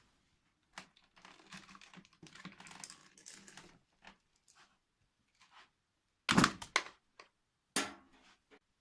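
Handling noises from an upright vacuum cleaner being got ready to run: scattered clicks and rustling, then two loud knocks about a second and a half apart.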